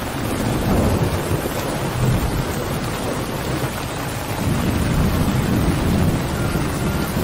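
Heavy rain pouring steadily with low rolling thunder, which swells twice: about a second in and again around five seconds in.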